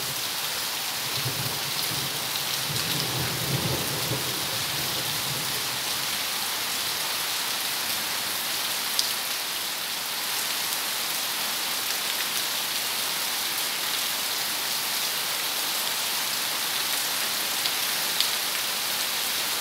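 Heavy downpour: a steady hiss of rain falling on leaves and wet paving, with a low rumble for a few seconds starting about a second in.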